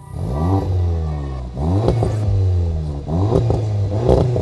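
Audi S3 8V's turbocharged 2.0-litre four-cylinder engine free-revved through a Scorpion stainless-steel cat-back exhaust, blipped about four times, each rev rising sharply and falling away, with crackles around the peaks.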